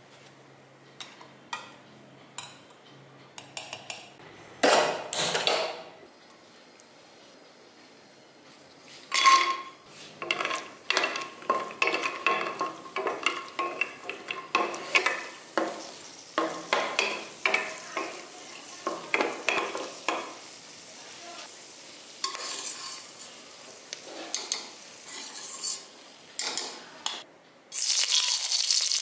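Cashew nuts tipped into hot oil in a stainless steel pan and stirred: a run of clinks and scrapes against the metal over a soft frying sizzle. Near the end a much louder sizzle sets in suddenly as fenugreek seeds go into the hot oil.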